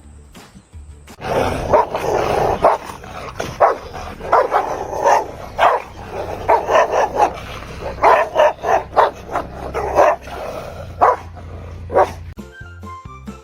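A dog barking over and over in quick runs for about ten seconds, starting about a second in and stopping shortly before the end.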